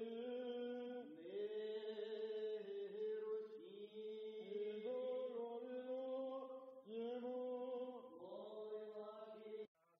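Eastern-rite liturgical chant: a slow sung line of long-held notes, stepping from pitch to pitch every second or two. It cuts off suddenly near the end.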